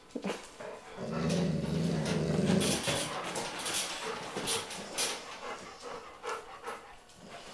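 Golden retriever growling low for about two seconds, starting about a second in, guarding a ball in play with another dog. Sharp clicks and knocks sound in between.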